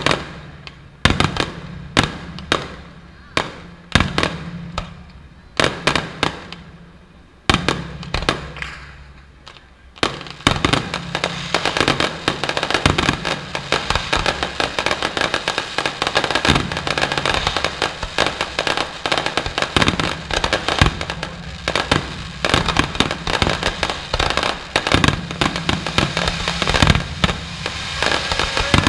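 Fireworks exploding: sharp separate bangs about once a second, each dying away, then from about ten seconds in a dense, continuous barrage of rapid bangs and crackling.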